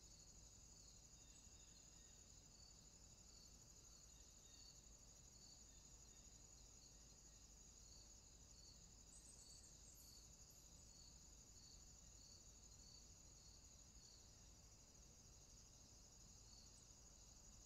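Near silence with a faint, steady high-pitched cricket trill and a softer chirp repeating regularly beneath it.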